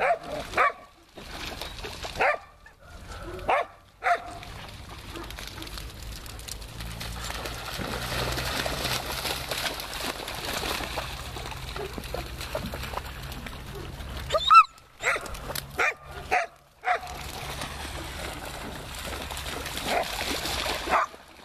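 Dogs barking in short bursts while playing: a cluster in the first few seconds and a louder cluster about two-thirds of the way through. In between there is steady splashing and sloshing of dogs running through shallow floodwater.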